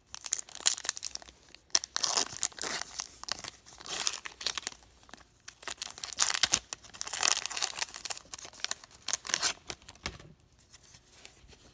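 A foil trading-card pack wrapper being torn open and crinkled by hand, in repeated crackling tears. It dies down about ten seconds in.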